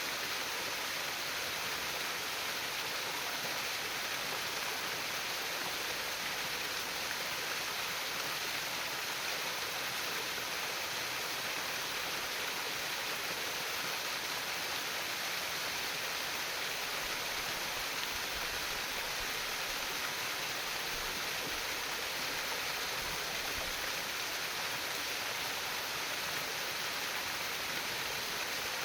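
Small stream of water trickling and splashing steadily, an even hiss of running water without a break.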